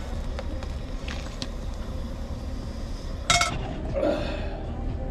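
Cookware and utensils clinking as food is handled in a small space, with a few light taps and one sharp clank a little past three seconds in, over a steady low rumble.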